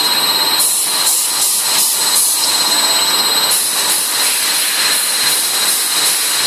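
Sludge dewatering press running: a steady whirring hiss with a constant high whine.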